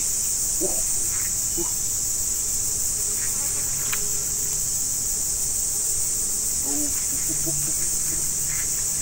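Insect chorus: a steady, dense, high-pitched drone that does not let up.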